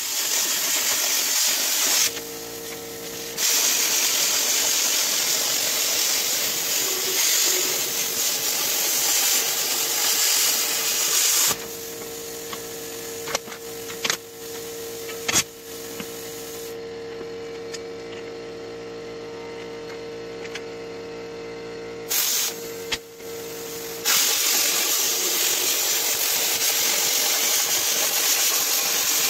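Plasma cutter cutting quarter-inch steel plate: a loud steady hiss that drops out briefly about two seconds in, stops for about twelve seconds near the middle, and starts again about five seconds before the end. During the pause a steady hum remains, with a few clicks and knocks as the plate is handled.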